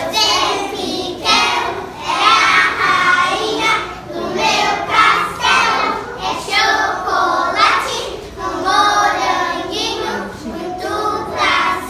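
A group of kindergarten children singing a song together in unison.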